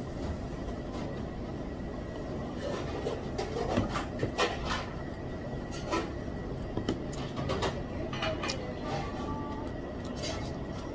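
Restaurant dining-room background noise, steady throughout, with scattered light clicks and knocks of chopsticks and tableware against a bowl.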